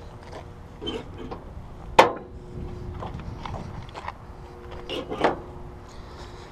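Light handling clicks around a Jeep Wrangler's closed hood, with one sharp click about two seconds in and a softer knock near the end, typical of the hood's rubber side latches being fastened down. A faint steady hum runs underneath.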